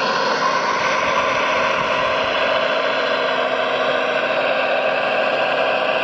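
Radio-controlled Liebherr 970 model excavator's electric hydraulic drive running with a steady whir as the machine moves on its tracks and works its arm.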